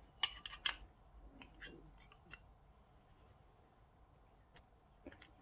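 Small sharp clicks and taps of starter-motor end-cap and brush-holder parts being handled and fitted by hand: a quick cluster of three or four in the first second, then a few faint scattered ones.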